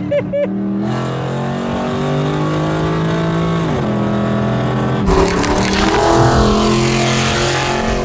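Chevrolet Caprice PPV's LS V8 heard from inside the car: about a second in its pitch jumps up as the automatic downshifts in sport mode and the revs climb, then it drops again a little before the four-second mark as it shifts back up. About five seconds in it changes to the same car heard from outside, with heavy wind rush over the engine note.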